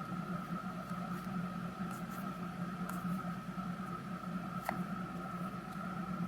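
Steady electrical hum with a faint high tone above it, and a few faint light clicks of trading card packs and cards being handled.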